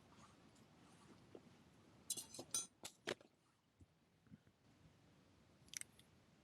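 Light metallic clinks from the metal parts of an ultralight fire stand being handled during assembly: a quick cluster of clinks about two to three seconds in, and one more near the end.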